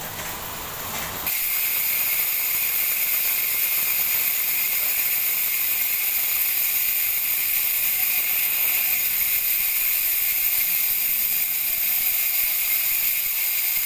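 Bicycle rear hub (ZD2 DR190), edited for a louder freehub sound, buzzing steadily as the wheel spins freely: its ratchet clicks run together into one high-pitched buzz. It starts about a second in.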